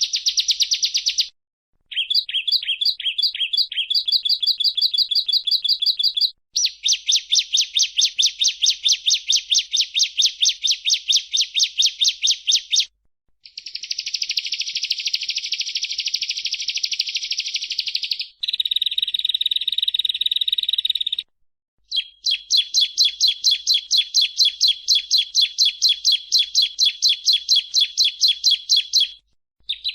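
Bar-winged prinia (ciblek) singing: fast runs of sharp, high repeated notes, about six a second, in several stretches that each stop abruptly, with one buzzier stretch in the middle.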